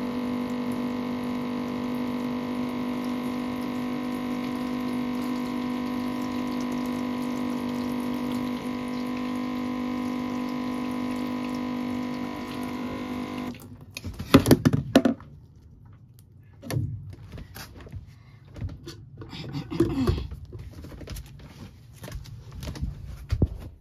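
Small battery-powered water-jug dispenser pump running with a steady, loud hum as it pumps water, cutting off about 14 seconds in. Knocks and clunks of the pump and jugs being handled follow.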